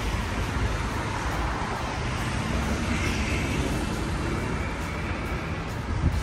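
Road traffic on a bridge roadway: cars passing with steady tyre and engine noise under a heavy low rumble, with a brief louder peak near the end.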